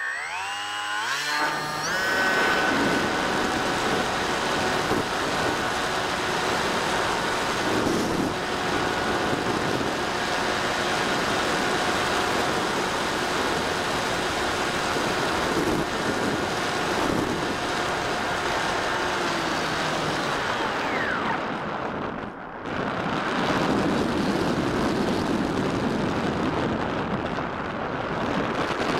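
Bixler 3 RC glider's electric motor and propeller heard from on board: a whine that rises quickly over the first two seconds as the motor throttles up for launch, then runs steadily during the climb. About two-thirds of the way through it winds down, and rushing wind noise takes over as the glider glides.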